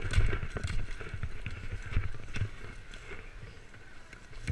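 Broomball play on ice heard from a player's body-worn camera: rubber-soled shoes thudding and scuffing as players run, with irregular knocks of brooms against the ball.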